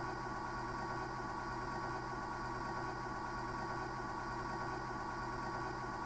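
A steady hum holding several tones at an even level, unchanging throughout.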